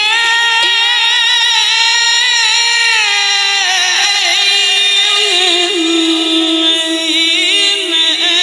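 Male qari chanting Quran recitation (tilawah) into a handheld microphone: one long unbroken melismatic held note with quick trills and ornaments, stepping down in pitch about five seconds in.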